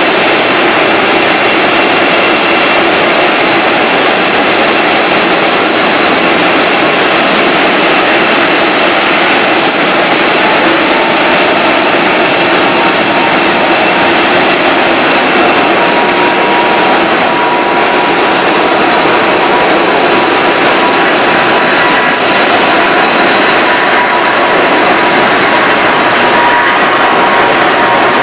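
Boeing 747-400D's four turbofan engines running at taxi power as the airliner taxis past and turns away: a loud, steady jet whine with high ringing tones. A mid-pitched tone grows stronger in the second half.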